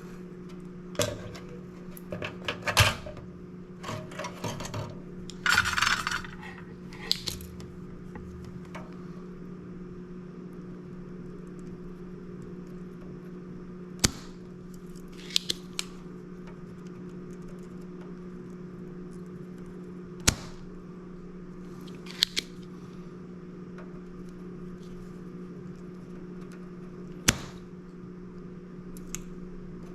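Hand tools and a circuit board being handled on a workbench during diode removal. There are rustles and clinks for the first several seconds, then isolated sharp clicks every few seconds over a steady low hum.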